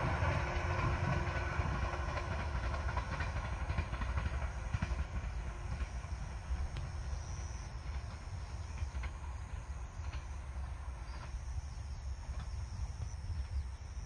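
A train running along the track, its rumble fading steadily as it moves away. A low, steady rumble remains after it has gone.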